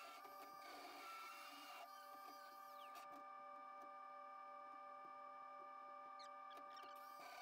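Faint angle grinder grinding a steel piece held in a bench vise for about the first two seconds, then stopping. Grinding starts again near the end. A steady whine carries on underneath the whole time.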